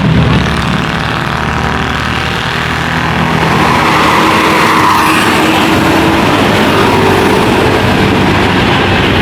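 A bus driving past close by, its engine running and tyre noise swelling to a peak about halfway through, then easing off.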